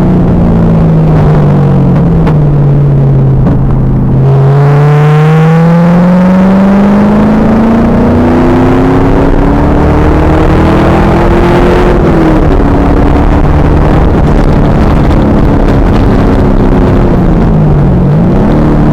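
A 2000 Pontiac Trans Am Firehawk's 5.7-litre V8 on track, heard through an overloaded, poor-quality recording. The engine slows as the car brakes, then pulls hard with its pitch climbing for about eight seconds. It shifts up at about twelve seconds and holds high revs, with a short lift and a dip in pitch near the end.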